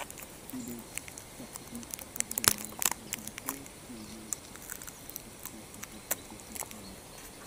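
Footsteps on dry leaf litter: irregular crunching and crackling of dead leaves and twigs underfoot, some crackles sharper and louder than others.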